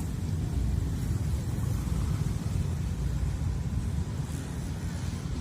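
Steady low rumble, loudest in the bass, with no breaks.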